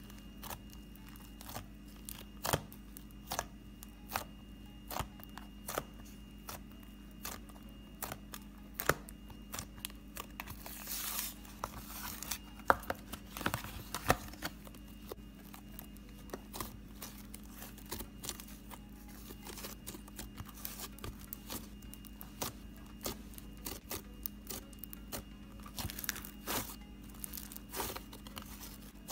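Black butter slime being poked, pressed and kneaded by hand, giving sharp sticky pops and clicks at irregular intervals. About eleven to fourteen seconds in it turns to a denser crackling, like tearing, as the slime is worked harder.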